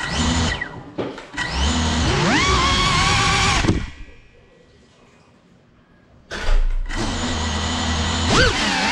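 GEPRC 35 cinewhoop FPV drone's brushless motors whining, their pitch rising and falling with the throttle. A short burst at the start, a longer run from about a second and a half with a rising whine, a quiet gap of about two and a half seconds, then the motors run again from about six seconds, swinging quickly up and down in pitch near the end.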